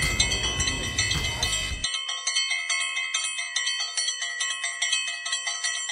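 A bell-like chime jingle: a quick run of struck ringing tones, several a second. Background street noise underneath cuts off about two seconds in, leaving only the chimes.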